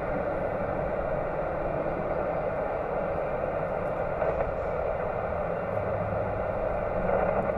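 Steady hiss of static from a ham radio receiver's speaker while it is tuned to an empty moment on the band, before the other station starts talking.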